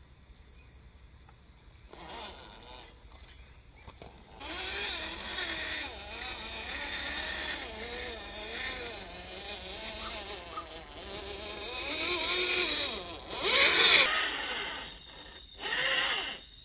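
Electric drive motor and gearbox of an MN99S Land Rover Defender RC crawler whining, the pitch rising and falling with the throttle as it crawls through mud. It starts about four seconds in, and near the end comes in short, louder bursts of throttle.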